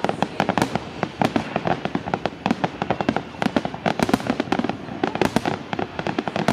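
Fireworks display: a rapid, irregular barrage of aerial shell bursts and reports, several bangs a second.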